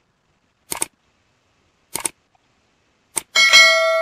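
Three mouse-click sound effects about a second and a quarter apart, then a bell chime ringing with several held tones and slowly fading: the sounds of an animated like button, Subscribe button and notification bell being clicked.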